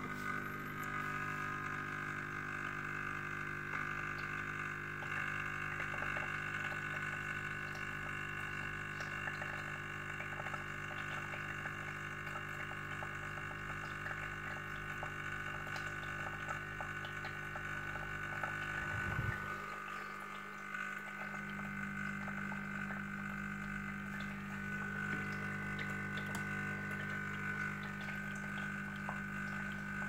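Wingkin Retro 210 espresso machine's pump running steadily while brewing a shot, an even hum with the espresso flowing into the glass. About two-thirds of the way through the hum briefly wavers and settles into a slightly different tone.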